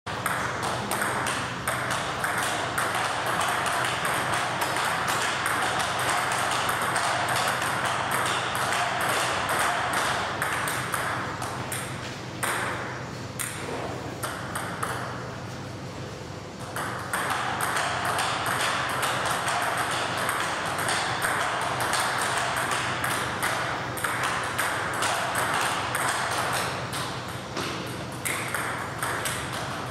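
Table tennis balls clicking off bats and tables in quick rallies on more than one table, a busy stream of overlapping pings. The clicking thins out for a few seconds near the middle as play pauses, then resumes.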